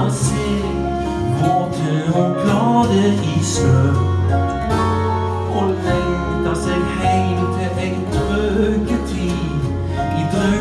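Live acoustic band playing an instrumental passage: fiddle, mandolin, acoustic guitar, double bass, keyboard and drums, with the bass stepping from note to note every second or two under held chords.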